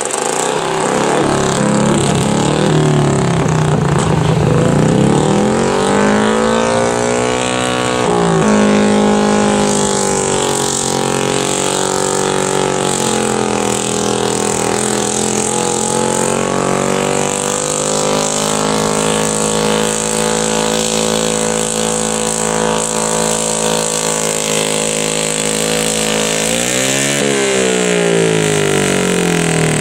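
Garden pulling tractor's engine running hard as it drags a weight-transfer sled down the track. The engine note climbs, drops suddenly about eight seconds in, then holds fairly steady with a slow sag. Near the end it dips and climbs again.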